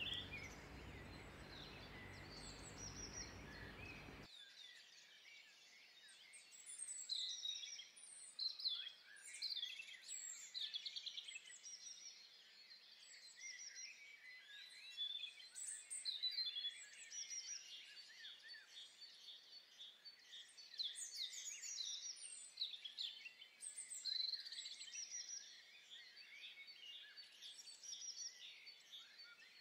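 Faint birds chirping and twittering in many short, repeated calls. An even low hiss runs under them for the first four seconds and then cuts off suddenly.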